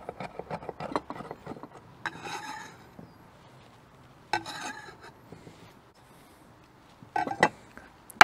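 Knife chopping basil quickly on a cutting board for about the first second, then a couple of brief scrapes and two light knocks near the end.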